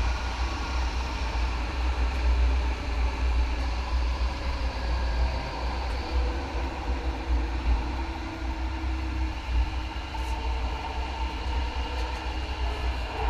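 MAX light rail train running along the track at speed: a steady, even rumble of wheels on rail and traction equipment.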